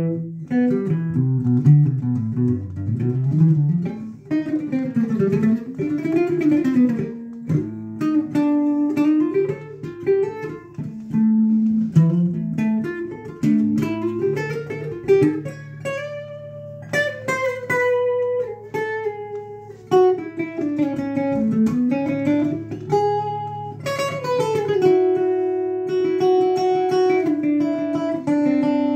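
Electric guitar picking arpeggio exercises: quick runs of single notes climbing and descending the neck, with a few longer held notes between them.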